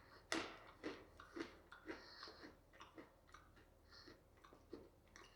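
Faint crunching of a person chewing coated peanuts (coconut-cream flavour): a string of short crisp crunches, roughly two a second.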